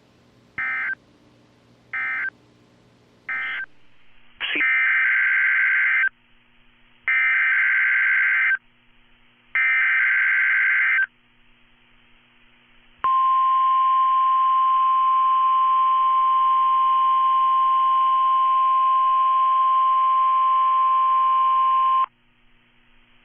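NOAA Weather Radio Emergency Alert System weekly test signal: three short bursts of screeching SAME digital data tones, then three longer SAME header bursts of about a second and a half each, then the 1050 Hz warning alarm tone held steady for about nine seconds and cut off sharply.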